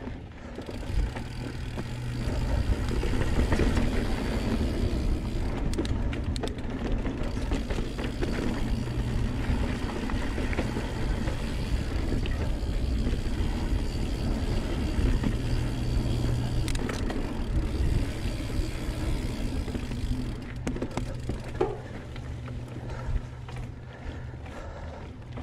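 Riding noise from a 2019 Santa Cruz Blur mountain bike on a dirt singletrack: a steady low rush of wind across the action-camera microphone and tyres rolling over dirt. A few short knocks and rattles come from the bike over bumps.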